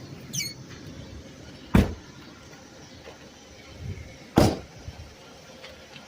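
Two car doors slamming shut, about two and a half seconds apart, over a low background rumble, with a brief high falling squeak just before them.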